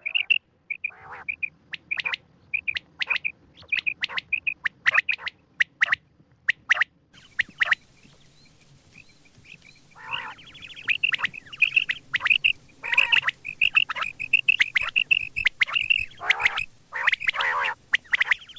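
Quail (batair) calling: runs of short, high chirping notes, with a brief lull near the middle, then harsher, raspier calls mixed in from about ten seconds in.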